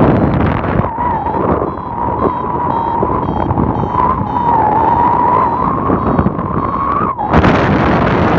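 Wind rushing over the microphone in paraglider flight, with a steady high tone that wavers slightly through the middle and stops about seven seconds in. Then the wind rush turns suddenly louder and brighter.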